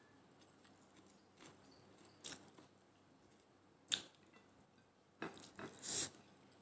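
Faint sounds of eating by hand: fingers working rice on a plate and quiet chewing, with a sharp click about four seconds in as food goes to the mouth. Near the end come several short breathy sniffs from a nose running with the chili's heat.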